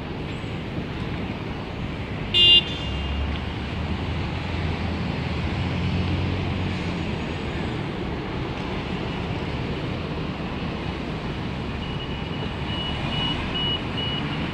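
City street traffic, with a city bus engine rumbling as it passes close by. A short, high horn beep sounds about two and a half seconds in, and faint repeating high beeps come near the end.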